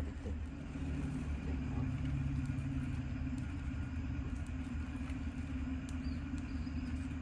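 A low, steady motor rumble, with a steady hum that joins it for about three seconds near the start.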